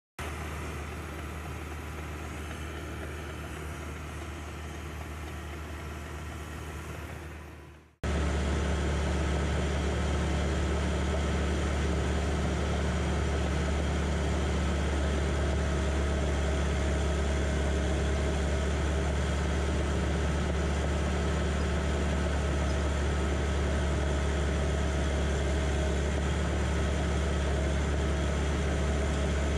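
John Deere 450J crawler dozer's diesel engine running steadily, heard from the operator's seat. About eight seconds in the sound drops out for a moment and returns louder, with a stronger low hum.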